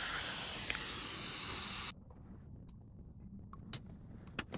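Steady airy hiss of dental surgical suction and handpiece during bone smoothing, cutting off abruptly about two seconds in. A few faint clicks of instruments follow.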